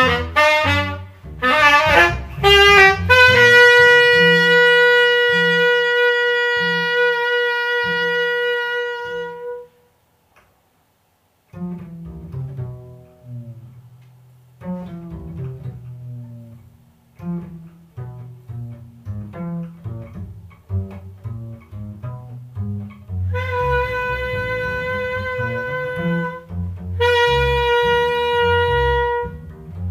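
Instrumental duet music: a melody instrument holds long, steady notes over a moving bass line. It stops for a moment of silence about ten seconds in, then resumes.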